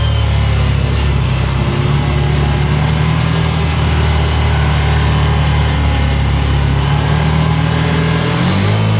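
2012 Can-Am Commander 800 side-by-side's V-twin engine running steadily while being ridden, its pitch shifting briefly near the end.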